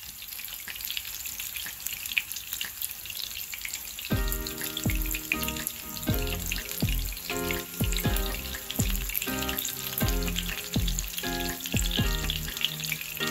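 A burger patty frying in oil in a small non-stick frying pan, sizzling and crackling. About four seconds in, background music with a steady beat and repeated dropping bass hits comes in over the sizzle.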